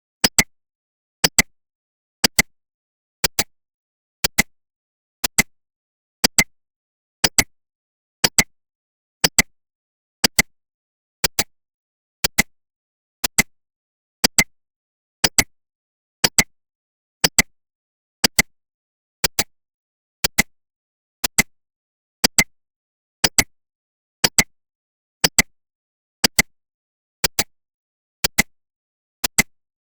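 Countdown timer tick sound effect: a short double click once a second, evenly paced.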